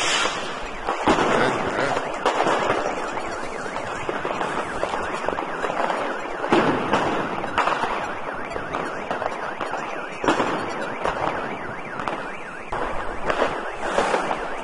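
New Year's fireworks and firecrackers going off all around: a dense, continuous crackle with sharp bangs every second or few.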